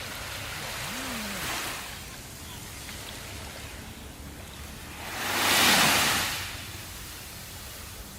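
Ocean waves on a shore: a smaller wave washes in about a second in, then a louder wave breaks and rushes up a little before the six-second mark and fades back into the steady surf.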